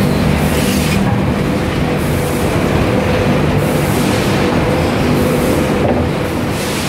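Steady rumbling ride noise heard from inside an open utility cart moving through a factory hall: running hum and rattle with a few steady low tones.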